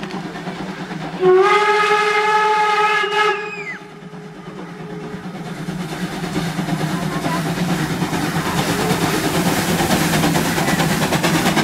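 Steam whistle of DR class 86 2-8-2 tank locomotive 86 333 sounding one blast of about two seconds, a little after a second in, dipping in pitch as it cuts off. Then the locomotive's exhaust beats grow steadily louder as it works its train up toward the microphone.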